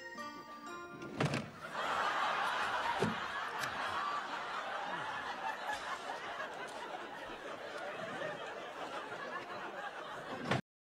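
Studio audience laughing, rising after a short knock about a second in and carrying on steadily until it cuts off abruptly near the end.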